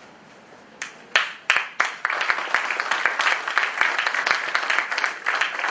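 Audience applause. A few scattered claps start about a second in and build into dense, steady clapping by about two seconds.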